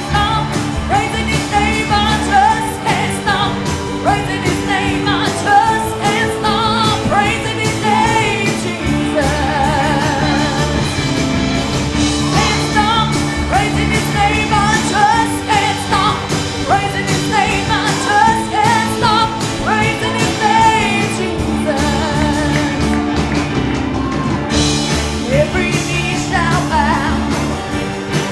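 Live worship music: singers leading a gospel praise song over a band with a steady drum beat.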